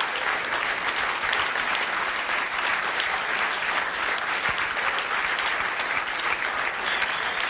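A large seated audience applauding steadily, dense clapping with no break.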